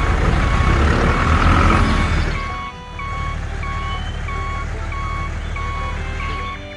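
Reversing beeper of a remote-control toy construction vehicle, beeping evenly about one and a half times a second. A loud engine-like rumble runs under it for the first two seconds or so.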